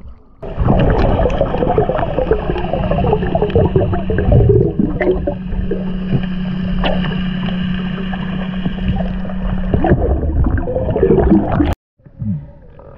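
Water gurgling and splashing over a steady low hum, which stops abruptly near the end.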